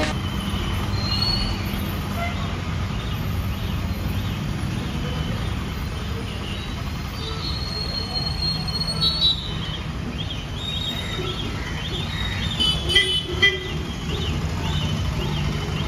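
Street traffic: a steady low rumble of passing motorbikes and cars, with short vehicle horn toots around the middle and again in the second half.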